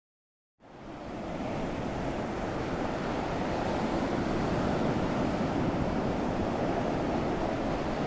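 Steady rushing outdoor ambience of sea surf and wind, fading in about half a second in after a moment of silence.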